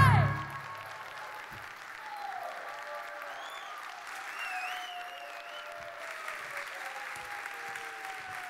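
Audience applauding and cheering after a song; its last sung note breaks off and falls away just at the start. A wavering high whistle rises over the clapping about four and a half seconds in.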